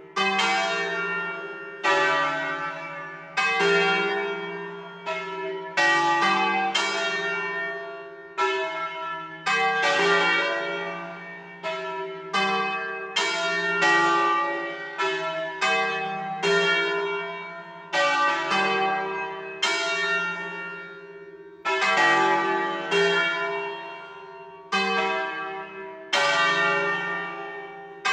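The four smallest bells of a five-bell peal in C, swinging on their wheels in a distesa, each striking about every one to two seconds in an uneven, shifting order. Every strike rings on and overlaps the next.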